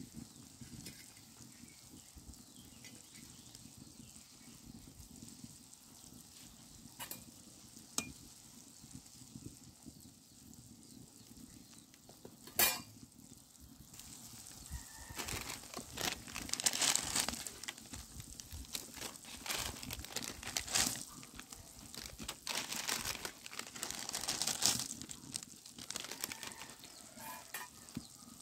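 Spicy masala broth boiling and sizzling in an iron kadai over a wood fire. A steady hiss carries a few sharp clicks in the first half. Louder crackling and crinkling stretches fill much of the second half.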